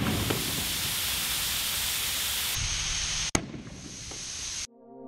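Compressed air hissing steadily from the open end of an air-compressor hose, its filling fitting torn off by the burst ball. About two-thirds of the way in comes a single sharp bang of the overfilled ball bursting, and music begins near the end.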